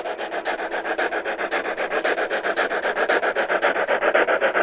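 G-scale model steam locomotive chuffing in a rapid, even rhythm as it approaches, getting steadily louder.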